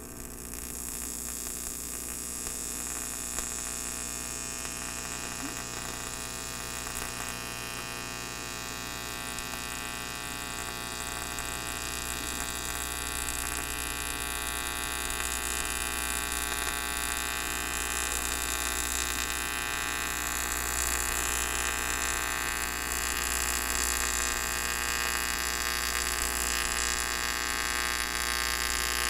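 AC TIG welding arc on 6061 aluminum pipe, a steady electric buzz, with the machine run near its 175-amp maximum on thick material. It grows gradually a little louder as the weld goes on.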